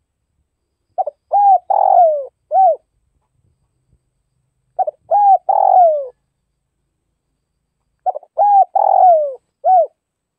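Spotted dove cooing: three song phrases a few seconds apart, each a quick stuttered note followed by a coo and a longer coo that falls in pitch, the first and last phrases ending with one more short coo.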